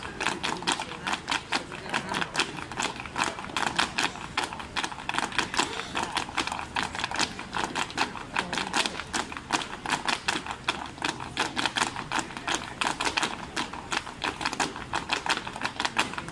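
Flamenco footwork (zapateado): a group of dancers' heeled shoes striking the pavement in a dense, rapid stream of sharp taps, several a second throughout.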